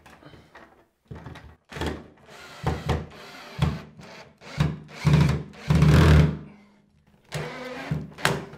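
Cordless drill-driver running in a series of short bursts, driving a screw through the plastic base of a ceiling light fitting into the joist. The longest, loudest run comes about six seconds in.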